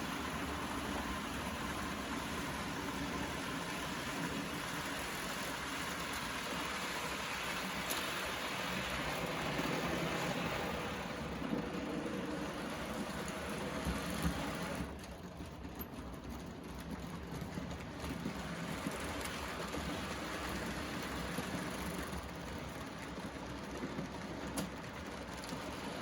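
Märklin model trains running on the layout: a steady whir and rumble of small motors and wheels on the track. About fifteen seconds in, the sound changes abruptly, with the hiss dropping away and the level falling slightly.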